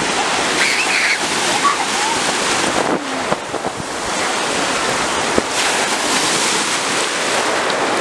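Waves of a rough sea breaking and washing through the shallows, with wind buffeting the microphone.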